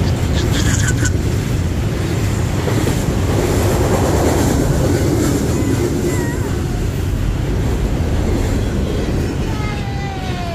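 Norfolk Southern freight train rolling past close by: a steady loud rumble of wheels and cars on the rails, with some clickety-clack, easing slightly near the end.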